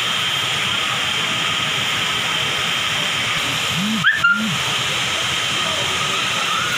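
Waterfall and rushing stream water making a steady, even hiss. About four seconds in, a person's short vocal sound briefly cuts through.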